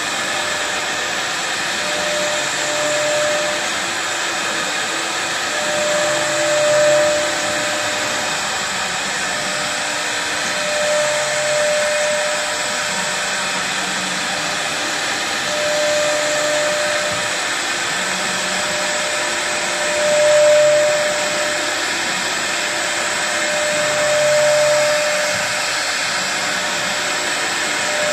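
ATC CNC router's spindle running steadily as its bit cuts a wood panel, a constant high whirr that swells briefly every four or five seconds.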